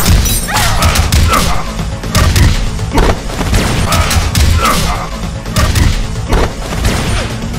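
Fight-scene soundtrack: music under a rapid run of hit sound effects, with punches, thuds and crashes landing every half second or so.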